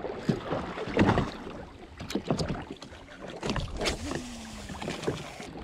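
Small waves lapping and slapping against the hull of a stopped jetski, in irregular splashes and knocks.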